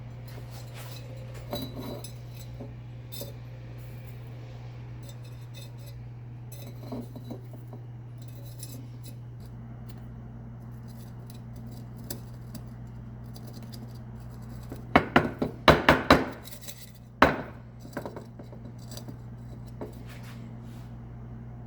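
A quick cluster of sharp metal clinks and clatters about two-thirds of the way through, then one more a second later, like pieces of steel knocking together, over a steady low hum.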